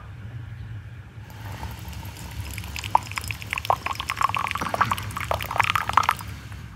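Liquid being poured, with irregular splashing and gurgling that starts about a second in, is busiest in the second half, and stops just before the end.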